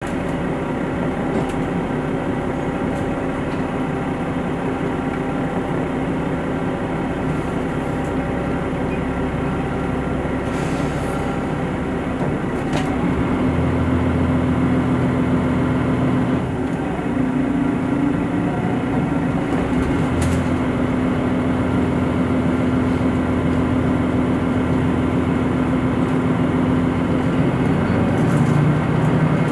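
Diesel express railcar heard from inside the passenger cabin. The underfloor diesel engine runs at a steady idle, then about halfway through its note steps up louder as it is throttled up and the train begins to pull away.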